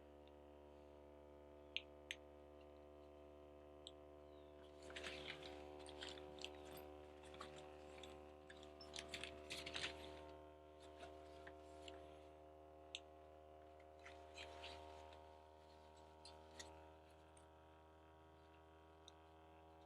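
Faint scattered clicks and rustling of something being handled, clustered in the middle, over a steady faint electrical hum.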